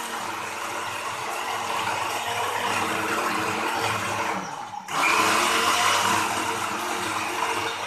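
Electric countertop blender (Khind) running, blending a wet spice paste of chili, shallots, garlic, turmeric, ginger and tempoyak. It whirs steadily, briefly dies down about four and a half seconds in, then starts again louder.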